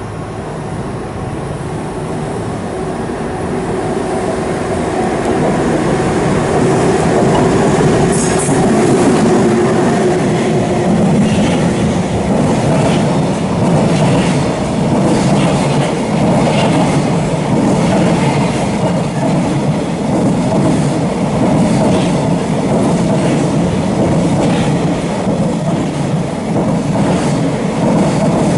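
A freight train hauled by an EH500 electric locomotive approaching and passing close by, growing louder over the first several seconds with a steady hum, then a long line of container wagons rolling past with regular clacks of the wheels over the rail joints.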